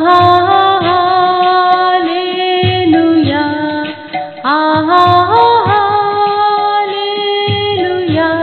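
Music: a woman singing a Hindi Christian devotional song over instrumental accompaniment, in long held notes that slide up into each new phrase.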